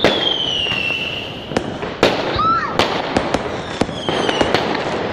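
Fireworks going off: sharp bangs and cracks at irregular intervals, with a whistle falling in pitch through the first second and another about four seconds in.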